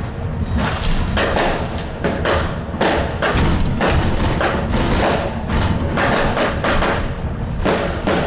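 New Year's Eve firecrackers and fireworks going off in a rapid, irregular run of bangs, several a second, around the light-rail tram. They are heard from inside the driver's cab over the steady low rumble of the tram running.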